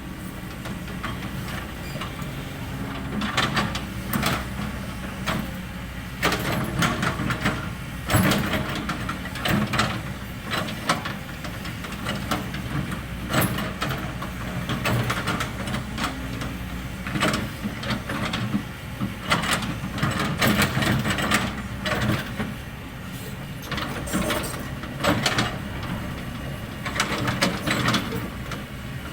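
Kobelco SK200 hydraulic excavator's diesel engine running steadily while the machine cuts a slope, with frequent irregular clanks and knocks from the bucket and arm working the ground.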